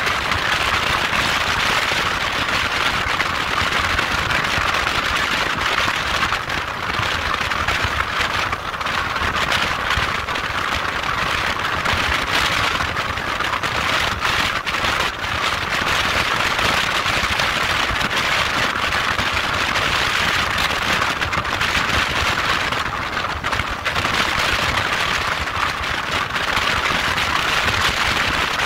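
Motorcycle on the move: a steady rushing noise, strongest in the upper middle, over a low rumble, with no clear engine note standing out.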